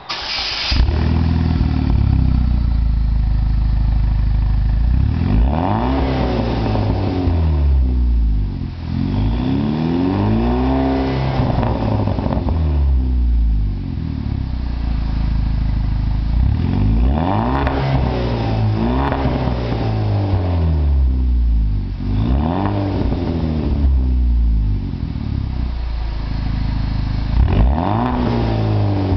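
Pontiac Solstice GXP's turbocharged four-cylinder engine, breathing through a Solo Performance Mach Shorty exhaust and high-flow Solo catalytic converter. It fires up in the first second, then idles with a deep exhaust note. It is revved in place about six times, each rev climbing and falling back in pitch, one of them held longer.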